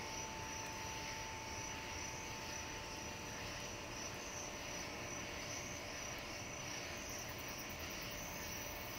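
Night ambience: insects making a steady high trill over a low, even rumble.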